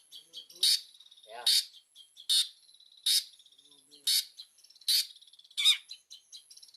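Long-tailed shrike (cendet) calling vigorously: seven short calls, each sweeping quickly downward in pitch, a little under one a second. This is a lively bout of the kind used as a lure to draw other shrikes to answer.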